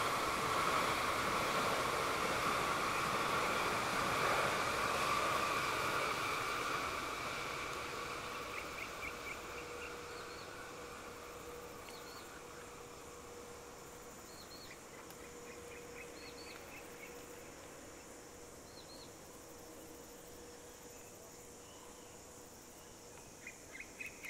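MTR East Rail electric multiple-unit train running past with a steady rumble that fades away over the first several seconds. Short chirping trills from insects and birds follow as the train noise dies down, becoming clearer near the end.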